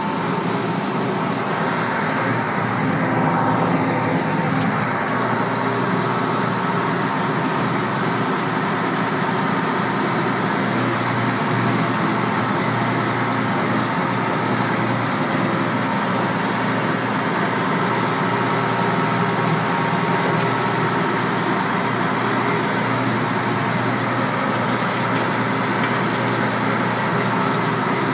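Case 1570 tractor's six-cylinder diesel engine running steadily under load, heard from inside the cab, while driving a 7-foot Rhino rotary mower through tall grass.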